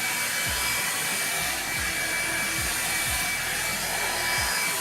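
Revlon One-Step hair dryer brush running on its high setting: a steady rush of blowing air with a thin, constant motor whine.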